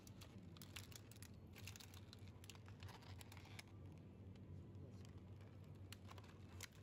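Clear plastic egg cartons crackling and clicking faintly as they are picked up and handled, in a cluster of quick clicks and a couple of later single clicks, over a low steady hum.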